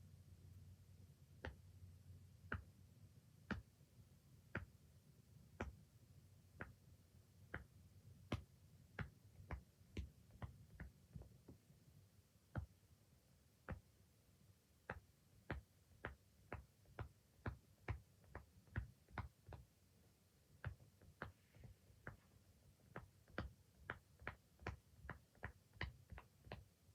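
Silicone pop-it fidget toy being popped bubble by bubble: a long series of single sharp pops, one to two a second at an uneven pace, coming faster in the second half.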